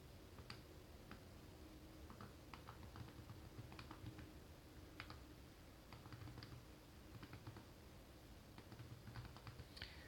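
Faint, irregular key clicks from the GPD MicroPC's small built-in keyboard being typed on with both hands, with a quicker run of keystrokes near the end.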